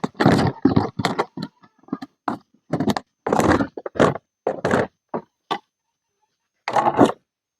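A quick, irregular series of knocks and clatter: about a dozen short hits in the first five seconds, then a last one near the end.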